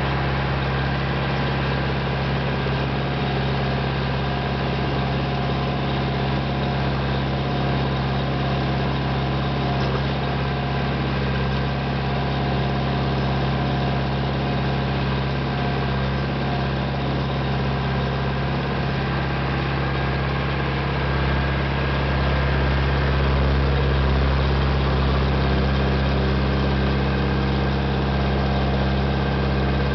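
International Harvester 574 tractor engine running steadily while pulling a two-bottom plow through the field, heard from the driver's seat next to the upright muffler. It grows slightly louder about two-thirds of the way through.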